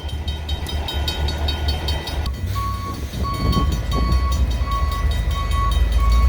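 Low, steady rumble of idling diesel freight locomotives. About two seconds in, a steady beeping starts, about three beeps every two seconds.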